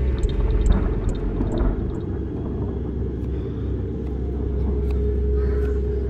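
A low, steady rumbling drone with a held mid tone running through it, and a few sharp ticks in the first couple of seconds that then thin out.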